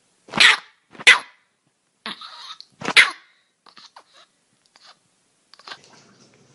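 A cat giving short, harsh bark-like calls: three sharp ones in the first three seconds, with a breathy half-second sound between the second and third, then a few faint clicks and one weaker call near the end.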